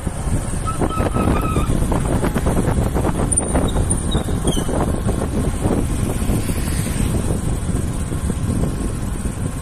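Steady road and wind noise of a vehicle being driven along a road.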